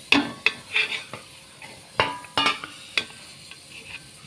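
Jaggery tipped from a glass bowl into a metal pan, with about seven sharp knocks and clinks of bowl and utensil against the pan in the first three seconds before it goes quiet.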